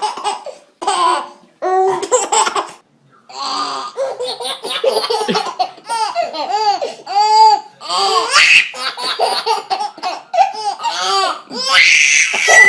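A baby laughing hard in long runs of quick, high-pitched pulses, with short pauses for breath between the runs.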